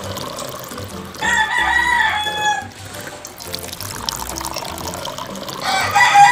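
A rooster crowing twice, once about a second in and again near the end, the second call louder. Soft background music plays beneath.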